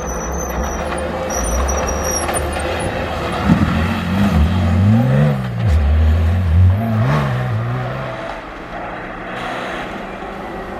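A rally-raid competition vehicle's engine revving hard as it passes, its pitch repeatedly rising and dropping with the gear changes, loudest in the middle.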